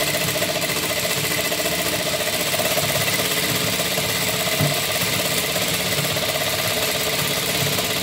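Table-mounted sewing machine running steadily at speed, stitching tulle through a gathering foot that gathers the fabric as it sews.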